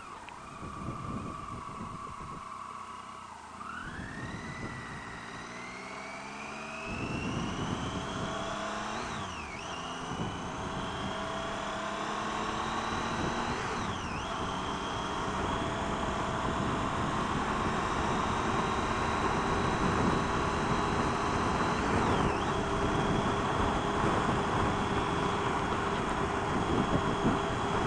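Triumph Tiger 800 XRt's three-cylinder engine slows and pauses, then pulls away about four seconds in and accelerates through the gears. Its rising whine drops sharply at each of three upshifts, and wind noise builds as speed rises.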